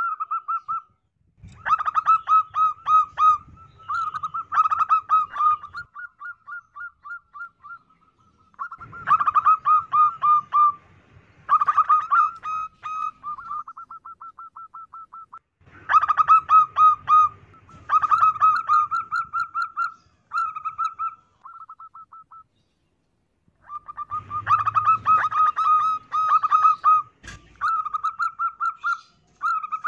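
Female zebra dove cooing: repeated bouts of rapid, staccato high notes, the bouts separated by short pauses.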